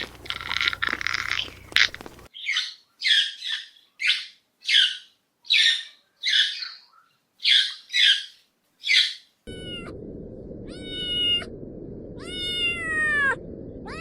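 A run of about a dozen short, squeaky chirps, then a cat meowing several times, each meow falling in pitch, over a steady hiss.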